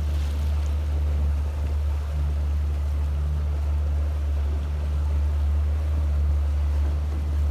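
Boat's engine running with a steady low drone, over an even rush of water and wind.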